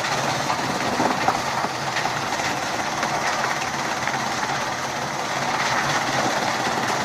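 Chaff cutter running with a steady mechanical clatter.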